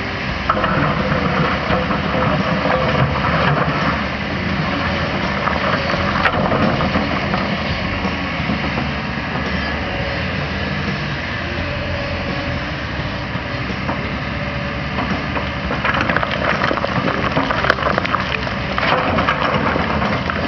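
Diesel engine of a JCB backhoe loader running under load, with rough crunching of soil and debris as the bucket works, heaviest over the first few seconds and again near the end.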